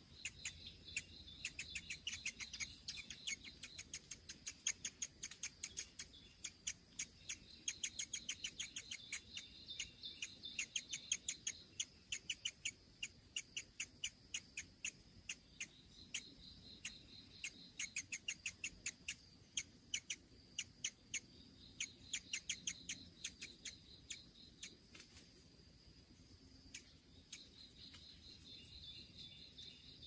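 Nestling bird begging at the nest: rapid trains of short, sharp, high chirps, several a second, coming in bouts of a few seconds while the parent stands over it. A steady high drone of insects runs underneath.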